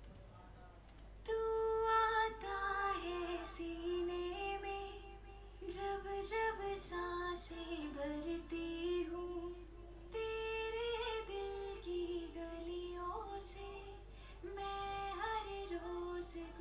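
A sung vocal played back through Logic Pro X's built-in Pitch Correction plugin. Each note is held flat and snaps straight to the next, all on scale, giving a harmonic, soothing quality. The singing starts about a second in and runs in several phrases with short breaks.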